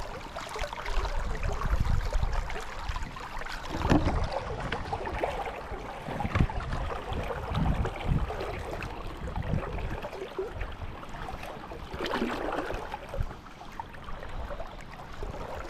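Steady rush of a brook's running water, with irregular low gusts of wind buffeting the microphone.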